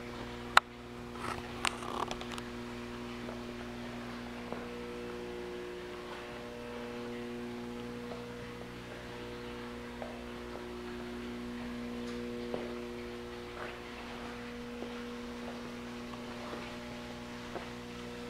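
Steady electrical hum, like mains hum, with a sharp click about half a second in and a few softer knocks around two seconds in.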